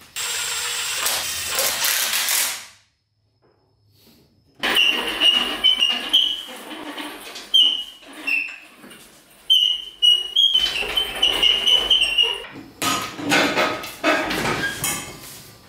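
A hiss lasting about two and a half seconds, then, after a brief gap, a steel engine hoist being rolled and positioned, its casters giving short high squeaks among knocks and clanks of metal.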